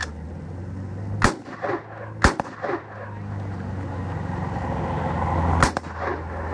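Three gunshots, each with a short echo off the surroundings: two about a second apart, then a third about three seconds later.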